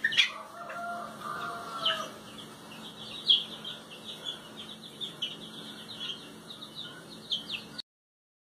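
A chick peeping: a run of short, high, falling peeps, several a second, with a lower drawn-out call in the first two seconds. The sound cuts off suddenly near the end.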